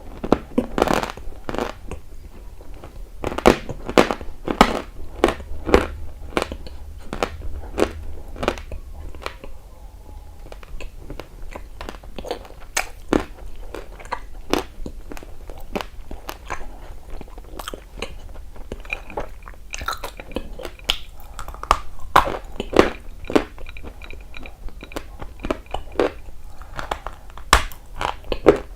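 A person biting and chewing a dry, crunchy piece of eating clay or chalk close to the microphone, with sharp, irregular crunches. The crunches thin out and turn quieter for a few seconds about ten seconds in, then pick up again.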